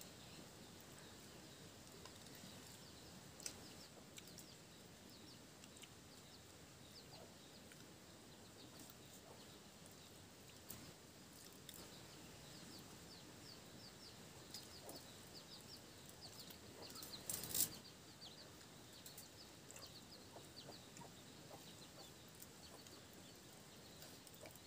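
Faint, repeated short high chirps of birds, likely poultry, going on throughout, with one brief louder scrape or clatter about two-thirds of the way through.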